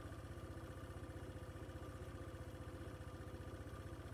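A vehicle's engine idling steadily with an even, fast low throb.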